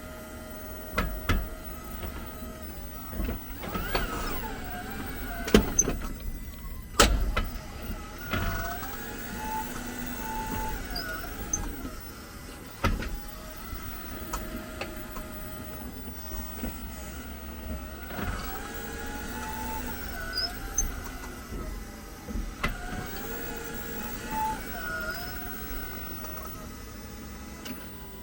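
Squeaking from a 2022 Jeep 4xe, a string of wavering, rising-and-falling squeals with a few sharp clicks and knocks between them. This is the squeak the car makes when reversing and braking or being shifted into Park, which a dealership brake cleaning did not cure.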